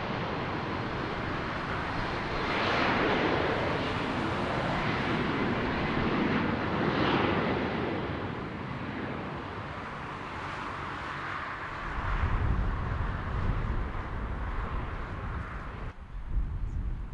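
Jet airliner's engines passing close by: a broad, steady roar that swells and ebbs. A heavy low rumble builds over the last few seconds, and the higher part of the roar drops away sharply shortly before the end.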